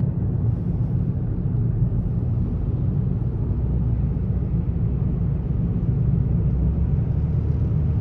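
Car driving at road speed, heard from inside the cabin: a steady low rumble of engine and tyres on the road.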